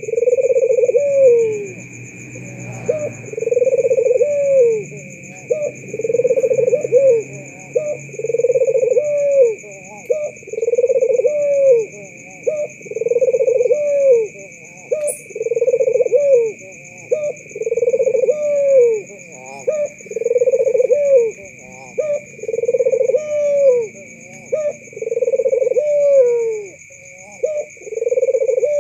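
White red-eyed puter (ringneck dove) cooing over and over, a low coo that falls in pitch at its end, about one every second and a half to two seconds.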